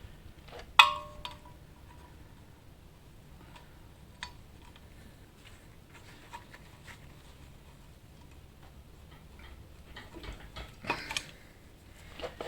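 Metal tools clanking against the engine's flywheel as its bolts are worked loose. One sharp clang about a second in rings briefly, followed by a few light clicks and a cluster of knocks near the end.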